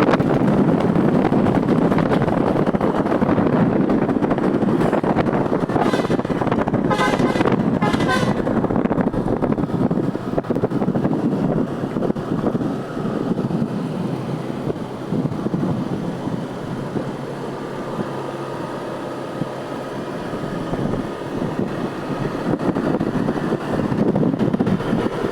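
Steady engine and road noise with a tour bus's musical telolet air horn sounding a few short, warbling notes about six to eight seconds in. Fainter held horn tones follow later.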